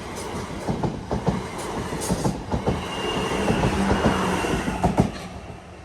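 Class 444 electric multiple unit running past on the line. Its wheels click over the rail joints in quick, uneven knocks, with a faint thin wheel squeal in the middle, and the sound drops away about five seconds in.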